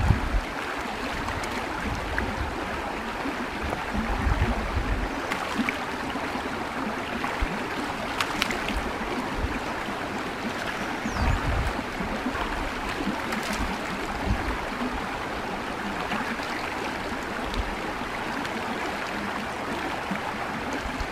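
Shallow, clear stream running over rocks with a steady rushing babble, and a few brief splashes and dull bumps from hands scooping the water.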